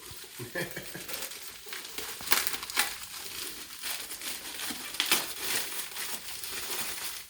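Packing material crinkling and crackling as it is pulled and peeled away from a boxed part, with a few sharp cracks along the way.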